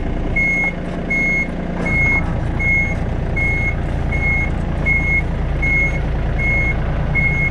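A reversing alarm beeping evenly, about three beeps every two seconds, over an engine running; the engine gets louder about two seconds in.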